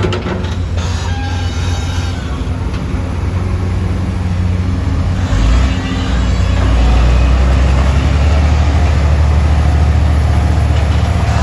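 Heavy diesel earthmoving machinery, a Komatsu PC200 excavator working, running with a loud steady rumble. About five and a half seconds in, the engine comes under load: the deep rumble swells and stays louder.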